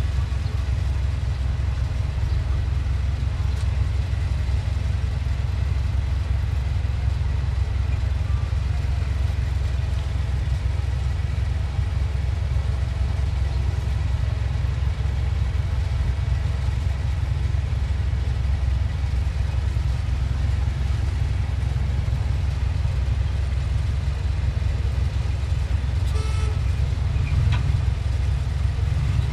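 Heavy diesel earthmoving machinery running steadily with a deep, even rumble, with a brief light rattle near the end.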